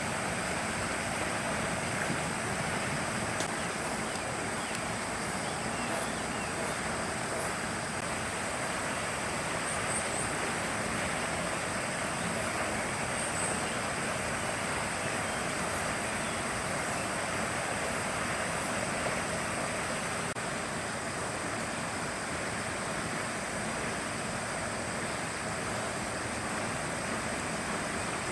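Steady outdoor background noise: an even rushing hiss with a thin, steady high-pitched drone above it. There are two faint high chirps about ten and thirteen seconds in.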